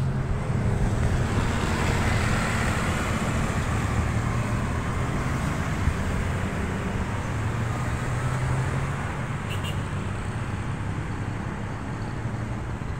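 Road traffic of motorcycles and cars passing on the street, a steady rush of engines and tyres that swells a couple of seconds in and slowly eases off.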